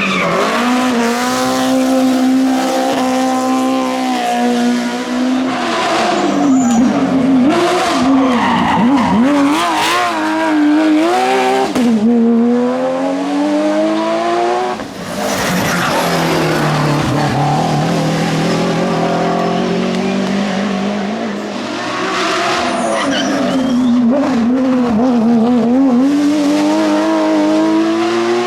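Hillclimb race car engines at full throttle, their pitch climbing through each gear and dropping back at the shifts and lifts, with several such runs one after another.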